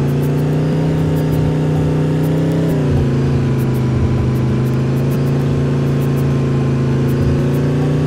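Bus engine running steadily while driving, its pitch dropping slightly about three seconds in.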